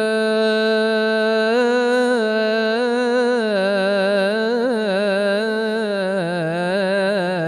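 A solo male voice sings an unaccompanied Islamic ibtihal, drawing one syllable out as a long melisma. The note is held steady for about a second and a half, then moves through wavering ornamental runs that rise and fall.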